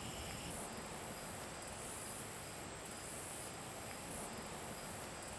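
Steady high-pitched insect chorus, pulsing evenly, over a soft background hiss.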